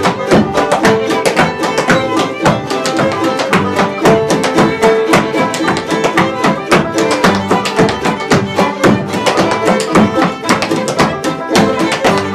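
Live acoustic string band playing a fast tune, with fiddle and guitar over a driving, evenly struck rhythm.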